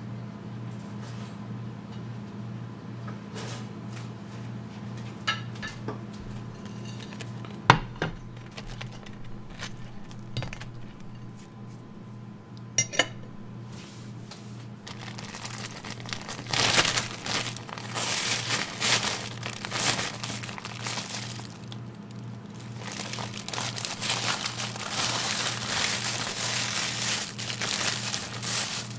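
A thin plastic bag crinkling in long stretches through the second half as hands rummage in it. Before that there are a few sharp knocks and clinks, one ringing clink near the middle as a plate is set down on a glass-ceramic cooktop. A steady low hum lies under it all.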